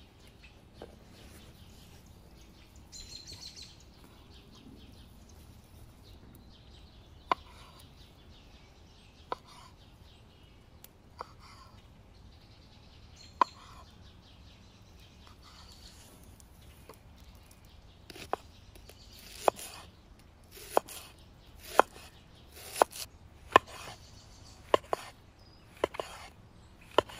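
Knife cutting through a mushroom onto a wooden cutting board: a sharp tap with each stroke, about one a second through the second half. Before that, a few scattered light knocks as food is handled.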